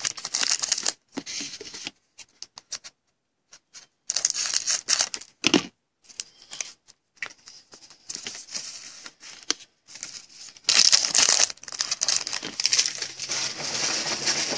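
A pack of 2016 Panini Diamond Kings baseball cards being torn open, its wrapper crinkling in irregular bursts of rustle with short pauses between.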